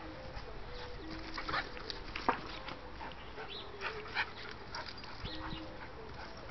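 Basset hound–pit bull mix dog whining in short, steady, high-pitched whimpers, excited as it chases soap bubbles, with several sharp clicks, the loudest about two seconds in.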